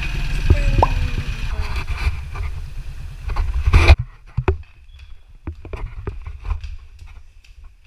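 Steady low rumble of a motorized tricycle's engine and road noise during the ride, cutting off abruptly about four seconds in. A much quieter stretch follows, with scattered light taps of flip-flop footsteps on stairs.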